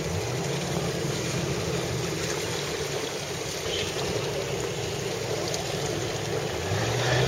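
Boat engine running steadily under wind buffeting the microphone and water rushing past the hull, heard from aboard a motorboat under way. The engine grows louder near the end.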